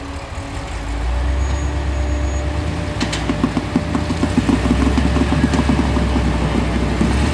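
Rock crawler's engine working under load as it climbs over boulders, getting louder about a second in, with a rapid clatter from about three seconds on and one sharp click near three seconds.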